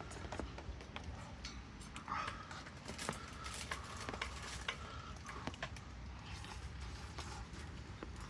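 Light scattered clicks and clinks of a utensil in a pot of noodles while eating, over a low steady rumble.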